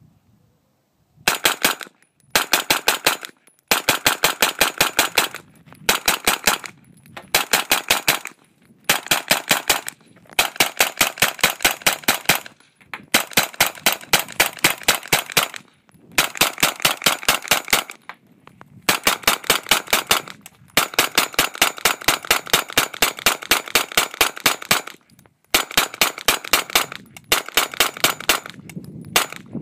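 A 9mm AR-pattern carbine (Colt upper) fired semi-automatically as fast as the trigger can be pulled, working through a 100-round Beta C-Mag drum. The shots come in strings of about six a second, with short breaks between strings, starting about a second in.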